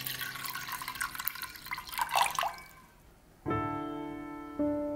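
Water poured from a jug into an enamel pot, splashing and trickling, then stopping about two and a half seconds in. A second later piano background music comes in with a few held notes.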